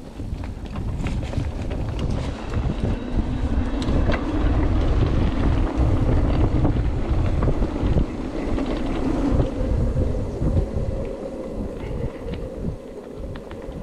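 Wind buffeting the microphone during an e-bike ride, over a steady hum, with scattered small clicks and rattles.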